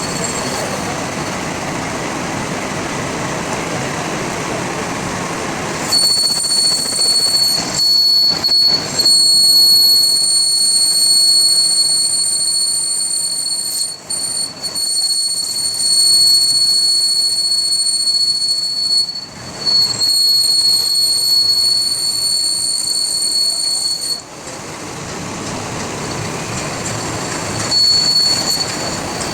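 A rushing mechanical noise, overtaken about six seconds in by a steady high-pitched metallic whine that cuts out briefly a few times and stops several seconds before the end, when the rushing noise returns.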